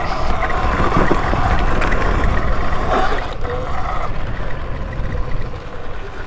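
Wind rushing over the rider's camera mic and tyres rolling over rough grass as an electric dirt bike rides across a field, with a faint steady whine underneath.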